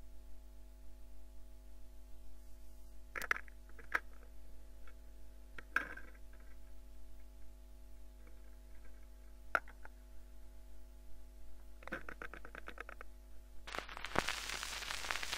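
Perpetuum-Ebner 66 automatic record changer cycling on a valve console set, over a steady low hum: a few sharp mechanical clicks, a quick ticking rattle as the arm swings across, then near the end the stylus sets down on the spinning 78 rpm shellac disc and groove hiss with crackle begins.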